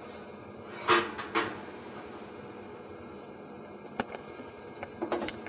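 Metal baking tray clanking against the oven rack as it is pulled out of the oven: two loud clanks about a second in, then a sharp click and a few lighter knocks near the end.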